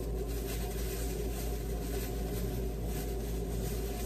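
Steady low hum of room and appliance noise, with light rustling of a plastic bag being handled.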